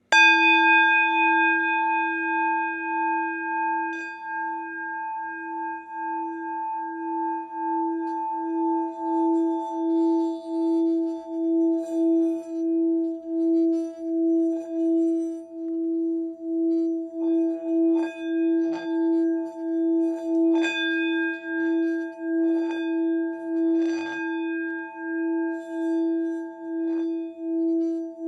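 ZenGolden singing bowl struck once and then rubbed around its rim with the mallet, building a sustained singing tone with several overtones and an even, wavering pulse. Faint scraping clicks of the mallet against the bowl come through in the second half.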